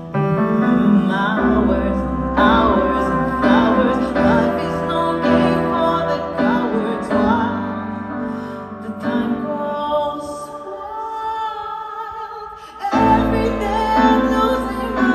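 Live pop ballad with piano and band and a woman singing a long melodic line. Near the end the music thins out, then the full band comes back in loudly with deep bass.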